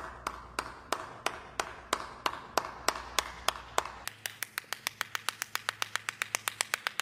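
One person's hand claps: a slow, steady clap of about three a second that breaks a little past halfway into a faster clap of about six a second, growing louder toward the end.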